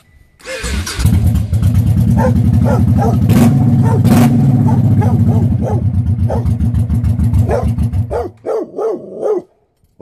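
2007 Honda Shadow Sabre 1100's V-twin engine started on the electric starter, catching within about a second and running steadily, then cut off about eight seconds in; the just-repaired starter switch is now engaging the starter. A dog barks repeatedly over it.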